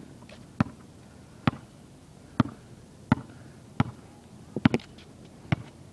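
A basketball being dribbled on concrete: about eight sharp bounces in a steady rhythm, a little under one a second, with a quick double bounce near the end.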